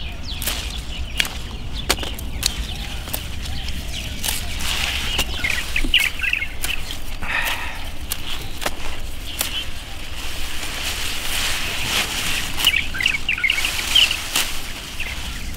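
Small birds chirping and twittering in bursts, over sharp snaps and leaf rustling as broad bean pods are picked off the plants by hand.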